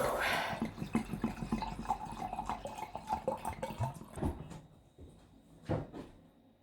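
Wine poured from a bottle into a glass, glugging quickly for about four seconds. Two knocks follow near the end.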